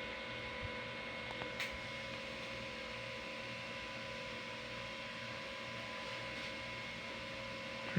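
Steady electrical mains hum with faint steady whining tones and a couple of faint ticks about a second and a half in.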